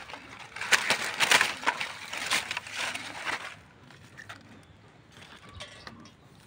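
Dry fallen leaves crunching and rustling in several quick bursts, then only faint rustles over the last few seconds.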